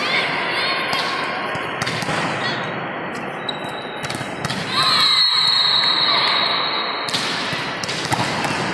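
Volleyballs being spiked and slapping onto the wooden hall floor in a string of sharp knocks over the general din of a busy sports hall. About five seconds in a loud, steady, high tone sounds for a little over two seconds.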